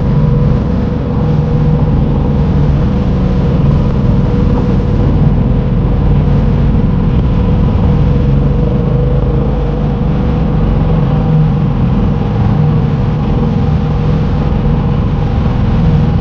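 Small fishing boat's engine running at a steady speed: a loud, even drone with a steady whine above it.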